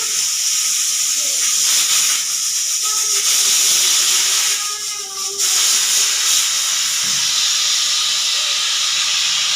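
Pressure cooker whistling: a loud, steady hiss of steam escaping from the whistle, which dips briefly about five seconds in and then blows on.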